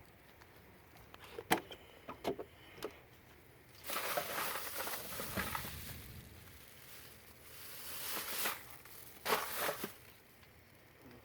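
Used motor oil being poured through a funnel into a plastic oil bottle: two stretches of hissing pour, with sharp knocks and clicks of the plastic bottle and funnel being handled before and between them.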